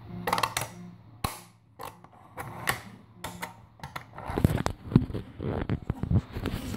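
Irregular clicks and knocks of a 3D-printed plastic spring catch being pressed and worked by hand against the sliding sled's rail, louder and busier in the second half.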